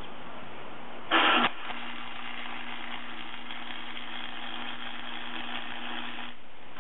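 Electric arc welding a bead around an axle shaft. A short loud burst about a second in, then a steady buzzing crackle for about five seconds that stops shortly before the end.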